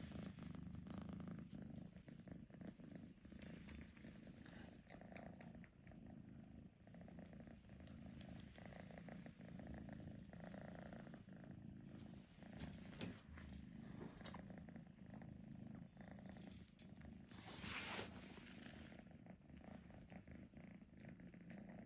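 Faint, steady, low purring snore: a continuous fine-pulsed rumble that swells slightly near the end.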